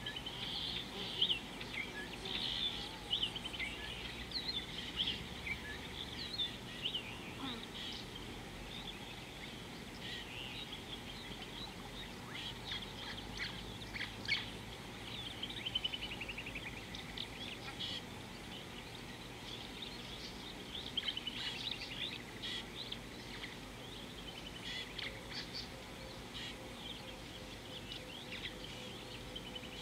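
Small birds chirping and trilling throughout, many short high calls overlapping, over a steady low background of outdoor noise.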